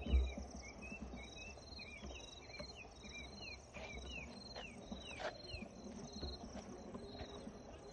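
Crickets and other insects chirping in a steady, regular pulse, with a thin high trill above them and a run of short, falling chirps.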